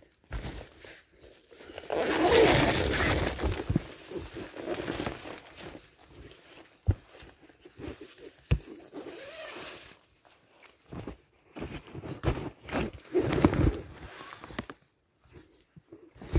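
Tent fabric and clothing rustling as someone shifts and moves about inside a small tent, in irregular spells, with a couple of sharp knocks in the middle.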